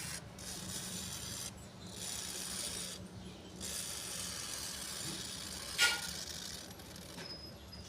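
Long abrasive scraping strokes, like filing or sanding a surface during restoration work, in runs of a second or two with short pauses between them. A sharp click comes near the end, over a steady low hum.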